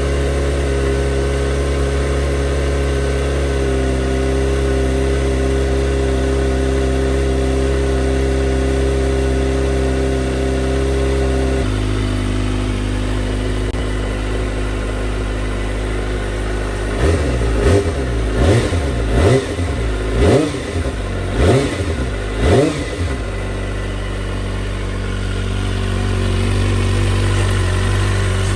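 Kawasaki ZX-25R's inline-four through a Yoshimura R77 full exhaust, warming up from a freezing cold start. It idles steadily, the idle steps down to a lower speed partway through, and then comes a series of quick throttle blips, each rev rising and falling, before it settles back to idle.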